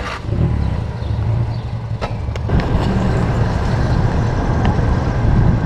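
Car engine running with a steady low rumble, just after starting; it grows louder about two and a half seconds in.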